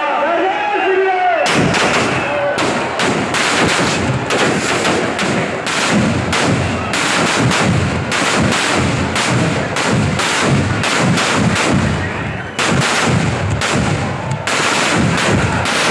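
Firecrackers packed inside a burning effigy going off in a rapid, unbroken string of bangs, starting about a second and a half in.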